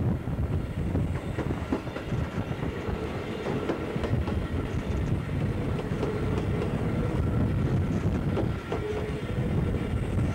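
Passenger coaches of a steam train running, heard through an open carriage window: a steady low rumble with wheels clicking over the rail joints.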